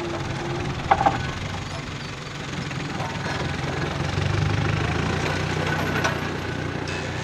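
Fendt Farmer 309 C tractor's diesel engine running steadily while the tractor turns with its cultivator lifted, getting louder about halfway through. A couple of sharp clanks about a second in, and a lighter one near the end.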